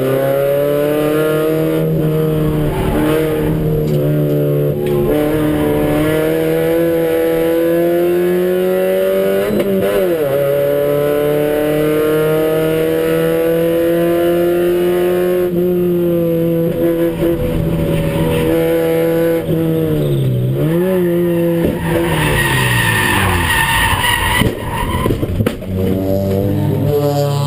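Toyota Starlet race car's engine running at high revs, heard from inside the cabin, its pitch rising and falling with gear changes. Near the end the tyres squeal and the revs drop away as the car slides off onto the grass, a slide the driver puts down to the brakes failing in the corner.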